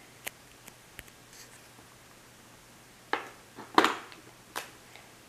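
Small plastic toy pieces clicking and clattering as they are handled and pressed onto a plastic playset: a few faint clicks in the first second, then several louder clacks about three to four and a half seconds in.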